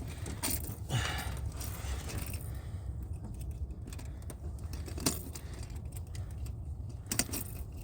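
Scattered light metallic clicks and jingles of fishing tackle being handled while a hook is worked out of a fish's mouth, over a steady low rumble. There is a sharper click about five seconds in and a quick cluster of clicks near the end.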